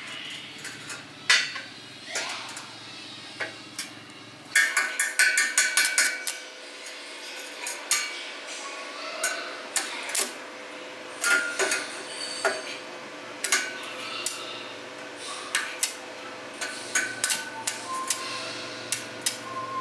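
Metal tools and parts clinking and tapping against each other, irregular sharp knocks with a quick run of rapid taps about five seconds in.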